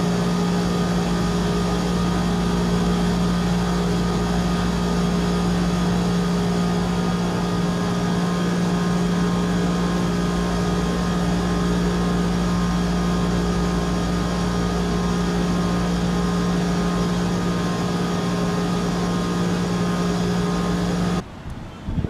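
Carrier floor-standing air conditioner/heater running: a steady low electrical hum with an even rush of air over it, cutting off suddenly about a second before the end.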